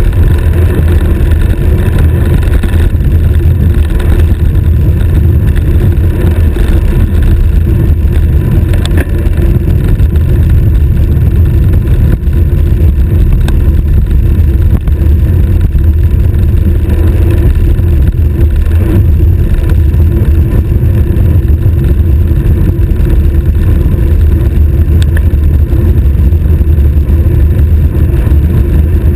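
Loud, steady wind rush buffeting a stem-mounted action camera's microphone on a road bicycle descending at high speed, with the rumble of tyres on asphalt beneath it.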